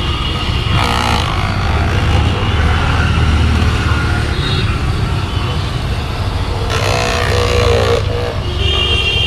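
Corded handheld electric massager buzzing with a steady low hum as it is pressed against the shoulder and upper arm.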